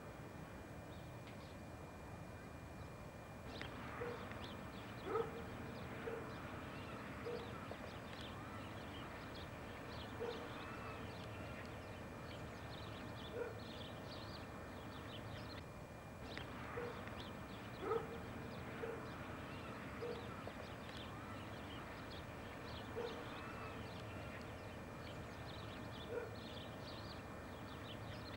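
A dog barking now and then, about a dozen short single barks spaced irregularly, the loudest about five and eighteen seconds in, over a steady hiss.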